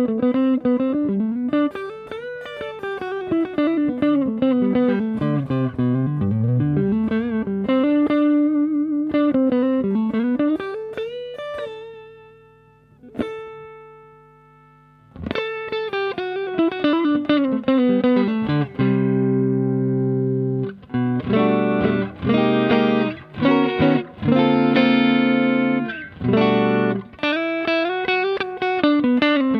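Fender Stratocaster played through a Fender Hot Rod Deluxe IV tube combo amp, with its tone controls turned all the way down. It plays single-note lines with bends and slides, then a held note that dies away about twelve seconds in. From about nineteen seconds on it plays chords.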